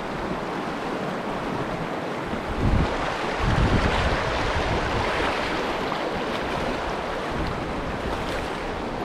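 Steady rush of a fast stream running high with snowmelt runoff, with wind buffeting the microphone a few seconds in.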